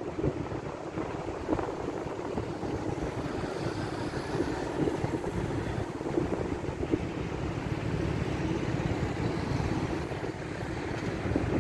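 Wind buffeting the microphone: a steady, uneven low rumble over general background noise.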